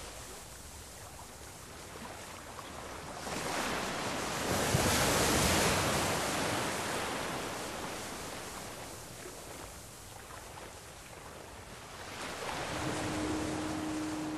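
Rushing wind and road noise of a car driving along a winding road, swelling louder about four seconds in and again near the end. A short steady hum sounds near the end.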